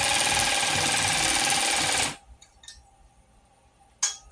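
3/8-inch drive cordless ratchet running, tightening a 13 mm nut, with a steady motor whine that stops suddenly about two seconds in. Near the end come a couple of sharp knocks.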